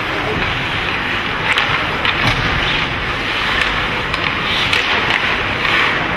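Ice hockey in play: skates scraping on the ice over a steady noisy arena hum, with short sharp clicks of sticks and puck every second or so.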